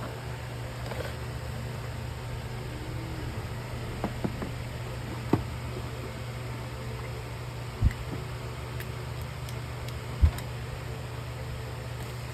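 Steady low hum with a few sharp knocks: objects being handled and set down, about five, eight and ten seconds in, the last the loudest.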